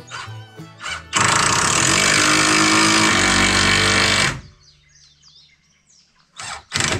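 Cordless power driver running steadily for about three seconds as it drives a long 3.5-inch wood screw into the pallet-wood frame, then stopping suddenly. Two short bursts from the driver come near the end.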